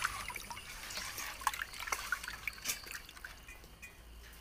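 Wet squelching and clicking of hands rubbing cut Indian mackerel pieces with rock salt and turmeric in a clay pot, cleaning the fish. The sounds come thick at first and thin out near the end.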